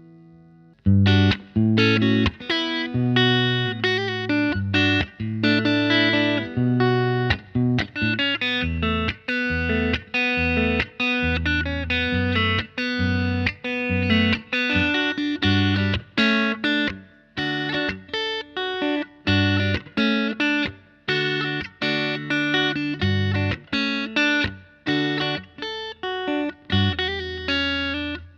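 Fender Mexican-made Telecaster electric guitar played through an amp: a run of picked chords and single notes that starts about a second in.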